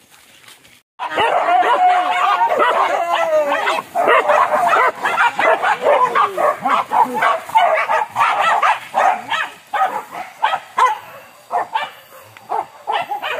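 Boar-hunting dogs on chain leashes yelping, whining and barking, many calls overlapping, starting suddenly about a second in.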